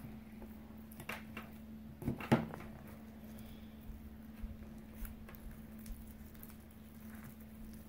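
Thick, powdery slime being stirred by hand in a glass bowl, giving a few soft taps and clicks and one sharper knock a little over two seconds in, over a faint steady hum.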